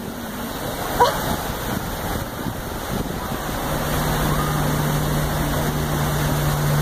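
Steady rushing of wind and churning ferry propeller wash, with a short cry about a second in and a steady low hum setting in about halfway through.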